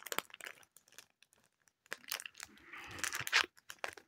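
Foil Pokémon booster pack wrapper crinkling as it is handled to be opened, quiet for about a second early on, then crinkling more densely from about halfway in.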